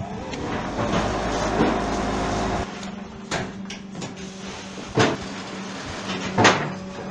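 RBM-12 vibro-hydraulic fly ash brick press working through a cycle over the steady hum of its hydraulic power pack. For about two seconds there is a louder noisy stretch with a low rumble, the compaction vibration, which stops suddenly. Then come three sharp metal clanks as the mould and pallet move, the last the loudest.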